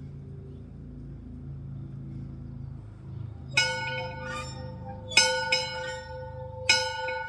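An overhead farmhouse dinner bell is rung to call the ranch hands in for dinner. About three and a half seconds in it is struck three times, about a second and a half apart. Each stroke rings on in a steady tone, and a lighter extra knock follows the first two.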